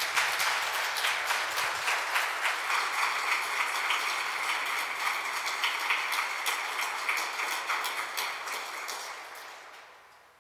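Congregation applauding after a song, a dense patter of clapping that dies away over the last couple of seconds.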